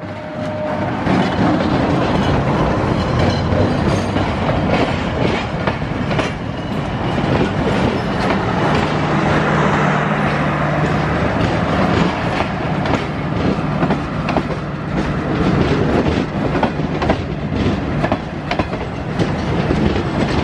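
Diesel-hauled passenger train passing close by: the locomotive goes by first, then a long string of coaches, their wheels clicking over the rail joints in quick repeated beats. A steady low hum is heard for a few seconds about halfway through.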